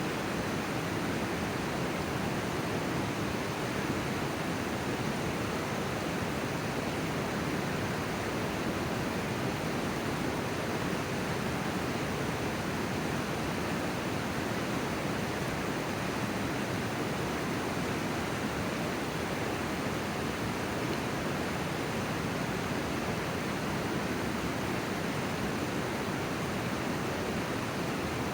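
River water rushing, a steady even hiss.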